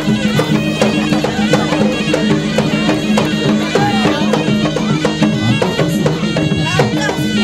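Gendang silat music accompanying a silat bout: a wind instrument, serunai-style, plays a wavering melody over a steady low drone, with quick, frequent drum strokes throughout.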